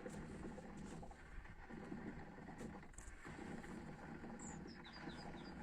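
Car engine running at sustained high revs with a steady low drone, an engine already knocking and being run to destruction. A few faint high chirps come near the end.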